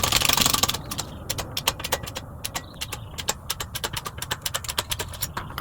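Rapid, irregular metallic clicking from a ratchet and socket working the press that drives a polyurethane bushing into a control arm. It opens with about a second of harsh rasping before the clicking takes over.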